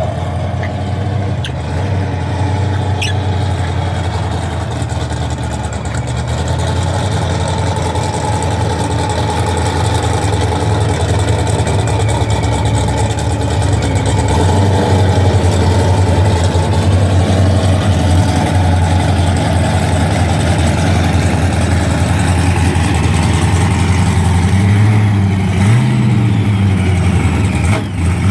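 Dodge Dart drag car's engine idling steadily as the car reverses back to the start line after its burnout, with a brief rev about 25 seconds in.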